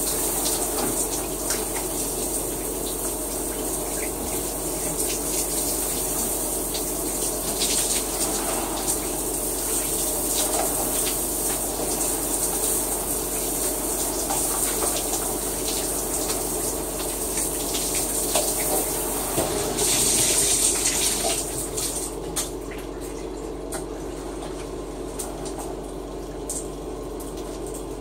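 Shower running, water spraying steadily; about three-quarters of the way through it becomes noticeably quieter.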